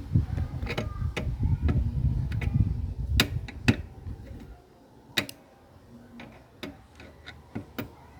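Irregular light clicks and taps of small parts being handled while the DVD player is worked on. A low rumble of handling noise runs under the clicks for the first half and stops about four and a half seconds in.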